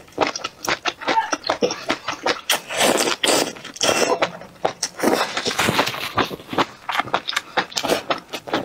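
Close-miked slurping and crunchy chewing of strips of spicy cold duck intestine: many sharp wet clicks, with two longer slurps about three and five seconds in.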